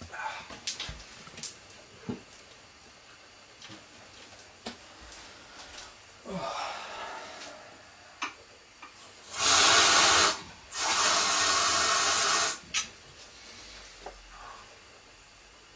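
Kitchen tap running in two spurts, about a second and then about two seconds, after a few light clinks and knocks of glass and crockery.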